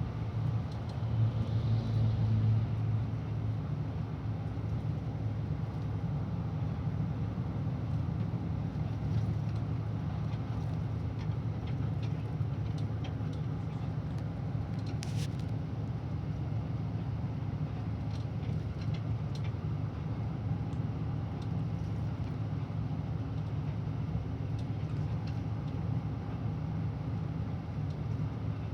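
Diesel engine of a Mercedes-Benz O500RSD Euro 6 coach running with a steady low drone, a little louder for a couple of seconds about a second in. A few short clicks sound in the middle.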